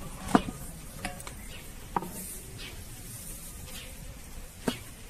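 Flatbread-making sounds: a few sharp wooden taps and knocks, the loudest about a third of a second in, as a thin sheet of dough goes onto a domed iron griddle and a thin wooden rolling pin works the next sheet on a wooden board, over a faint steady hiss.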